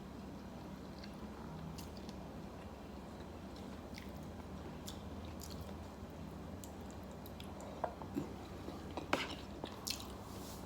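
Faint steady low hum with scattered small clicks and taps, and a cluster of louder sharp clicks and taps about eight seconds in.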